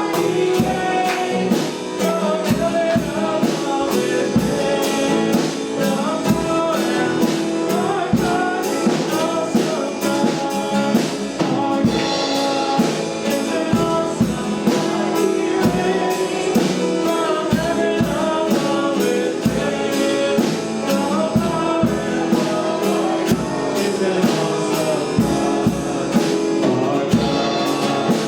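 Worship song played by a band with singing, a drum kit keeping a steady beat under the melody.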